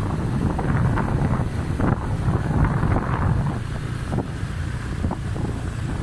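Wind buffeting the microphone over a steady low rumble, with irregular crackling gusts.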